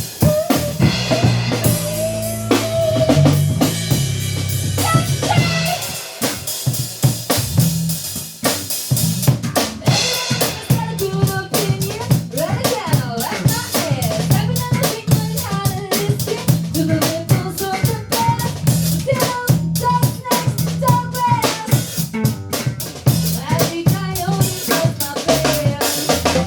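Instrumental song demo: a drum kit keeps a steady beat with kick and snare under a bass line, while a lead melody line bends and glides above it.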